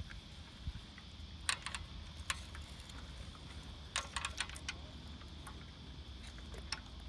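Hand-cranked boat trailer winch clicking as its handle is turned to wind the boat onto the trailer. The clicks come in short irregular runs, busiest about four seconds in, over a steady low rumble.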